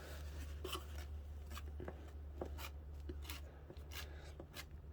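Faint rubbing and light scraping of a thin layer of filler being smoothed over the floor by hand, with small irregular ticks, over a steady low hum.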